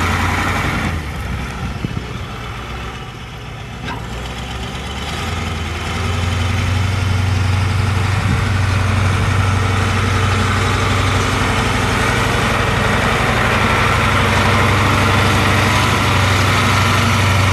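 Caterpillar 3208 V8 diesel engine of a 1983 Ford 8000 truck idling steadily. It drops quieter for a few seconds about a second in, then comes back up and holds steady from about six seconds on.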